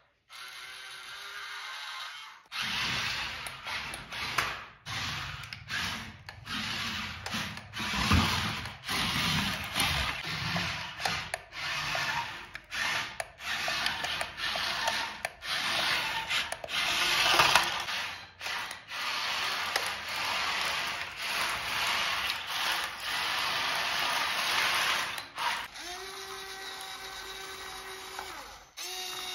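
Loud scraping and grinding, broken by many short gaps, then a small electric motor's steady whine near the end.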